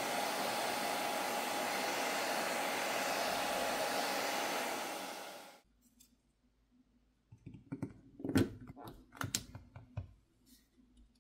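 Hair dryer blowing steadily with a thin, steady whine, heating the phone's back cover and outer screen to soften the adhesive underneath. It switches off about halfway through and winds down. After a short pause come a handful of sharp clicks and taps.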